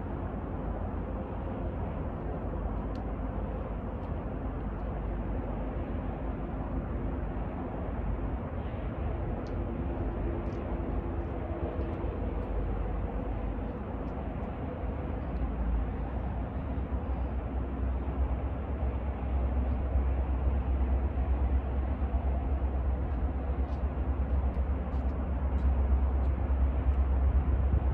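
Diesel freight locomotives approaching, a steady low engine rumble with a faint hum that grows louder over the last dozen seconds.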